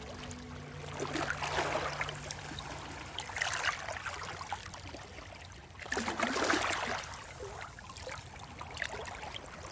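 Sea water washing and splashing against a rocky shore, in irregular surges a few seconds apart.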